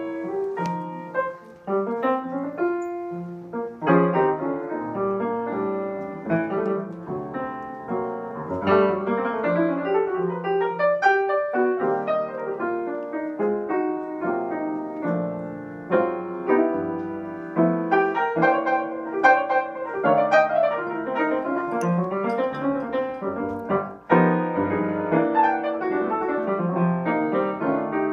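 Piano music: a continuous flow of struck notes and chords, with no singing.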